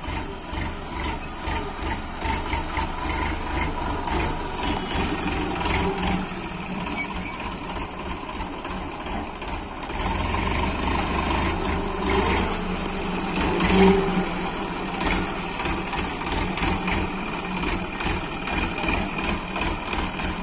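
Massey Ferguson 9000 diesel tractor engine running steadily with a fast, even beat while it pulls a spring-tine cultivator, with one brief louder sound about two-thirds of the way through.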